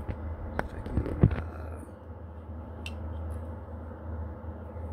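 A few sharp knocks and clicks of folding knives being handled on a blanket-covered table, bunched in the first second and a half with the loudest just after a second in, then one faint click near three seconds, over a steady low hum.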